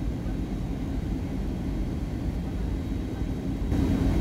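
Aircraft cabin noise on approach: a steady low drone of engines and rushing air. It turns suddenly louder and brighter near the end.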